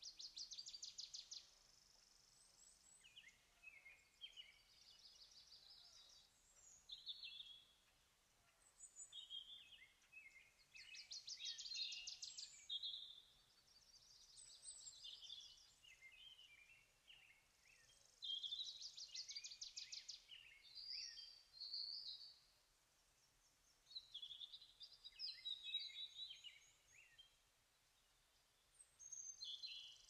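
Birds calling faintly: short high chirps and whistles in scattered phrases. A rapid buzzy trill comes in every several seconds.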